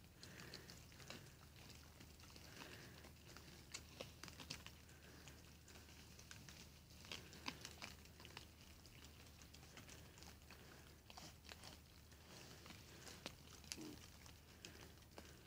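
Faint, irregular crunching and clicking of wild boars chewing scattered feed off the ground.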